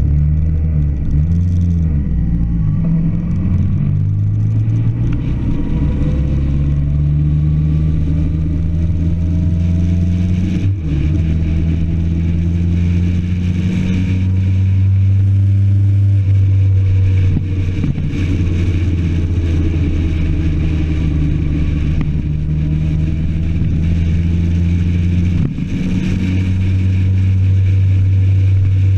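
Motorcycle engine running at a steady cruise, heard from the moving bike, its note holding for several seconds and then shifting. The sound dips briefly about a third of the way in and again near the end.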